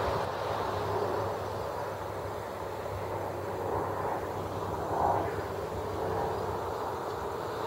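Steady distant engine drone, swelling briefly about five seconds in.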